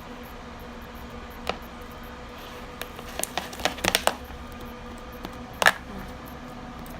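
Sticky slime being stirred with a utensil as boric acid water is worked in: scattered clicks and taps against the container, a cluster in the middle and the sharpest one near the end, over a faint steady hum.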